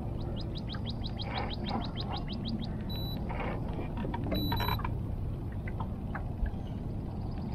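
Two short electronic beeps, the second one longer, over a steady low background rumble, after a quick run of high ticks.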